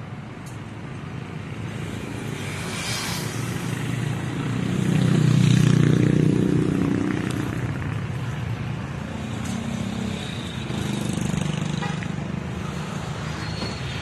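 A motor vehicle's engine passes close by, swelling to a peak about six seconds in and then fading, over a steady low hum of street traffic.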